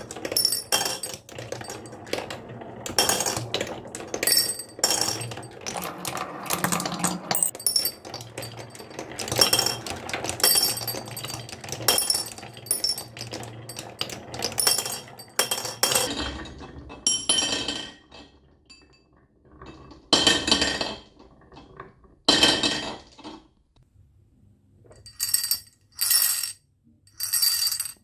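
Marbles running down a wooden marble-run track: a dense clatter of clinking hits over a low rolling rumble, thinning a little over halfway through to separate ringing clinks a second or two apart.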